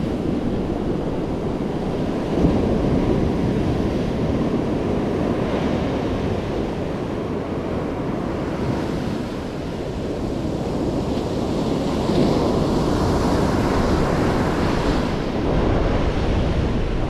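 Surf breaking and foam washing up the sand, steady and continuous, growing louder as a wave washes in about twelve seconds in, with wind buffeting the microphone.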